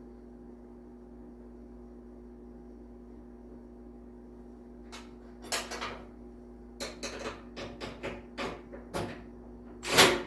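A steady low hum, then from about halfway an irregular run of knocks and clanks from tools and metal parts being handled while the snowblower chute cable is fastened, with the loudest knock near the end.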